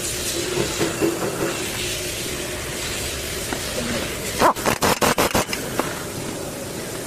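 A quick run of about six sharp knocks over about a second, over a steady background hiss. They most likely come from a Toyota Prado's front suspension, the stabilizer noise being chased.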